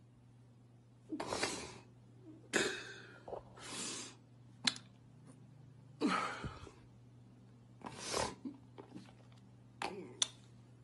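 A person crying, sobbing in a series of breathy, gasping bursts a second or two apart, some starting with a short falling wail, over a faint steady hum.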